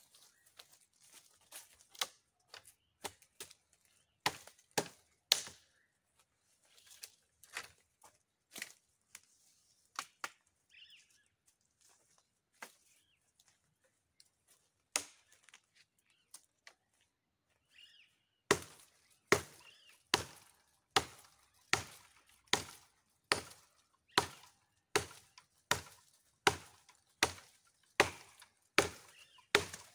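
Machete blade chopping into a wooden tree branch. Scattered blows come first, then after a pause a steady run of hard chops, a little more than one a second, over the last third.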